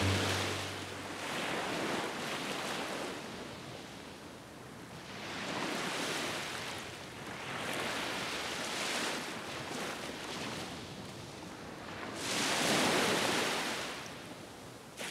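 Ocean surf breaking on a beach, swelling and falling away every few seconds, with the loudest wave near the end.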